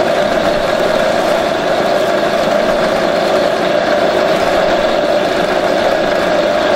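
AGR-CH250 multi-purpose grass chopper running steadily while it chops vegetables. It gives a loud, even hum with one strong steady tone.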